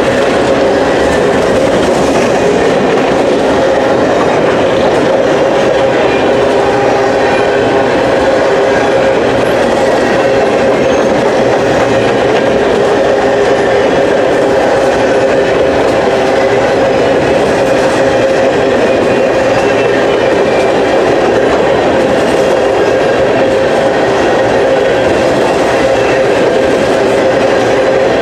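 Empty freight train of sulphur cars rolling past slowly on jointed or welded track: a steady, loud rolling rumble of wheels on rail with a sustained humming tone running through it.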